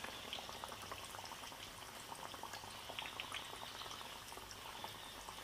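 Besan-battered potato slices (aloo pakoras) deep-frying in hot oil: a steady, quiet bubbling with many small crackles.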